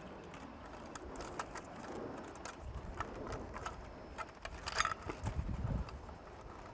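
Light clicks and rustling of electrical wires and a light fixture being handled as the spliced wires are folded into the electrical box, with a short louder rattle and a low bump about five seconds in.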